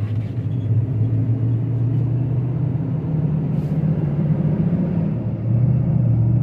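Gasoline V8 engine of a 2016 Ram 4500 heavy-duty truck heard from inside the cab while the truck gains speed at low road speed: a steady low hum with road noise. The sound dips briefly about five seconds in, then runs a little louder.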